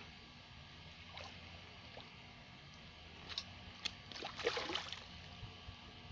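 A few short water splashes and knocks at the canal edge, busiest and loudest about four and a half seconds in, over a faint steady hum.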